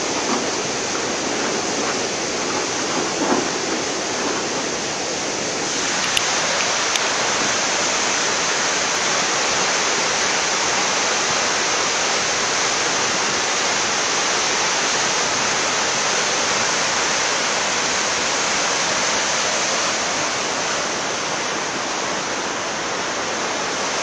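Flash-flood torrent of muddy water rushing past a washed-out road crossing, a steady dense rush of churning water. It turns a little louder and brighter about six seconds in.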